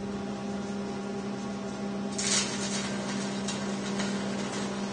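Wire-feed (MIG) welder humming steadily, then about two seconds in the arc strikes and crackles with sharp pops as spot welds are laid on sheet steel.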